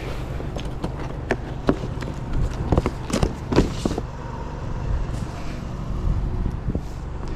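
Scrap metal hardware being handled and loaded: a series of sharp clanks and knocks, over a steady low hum.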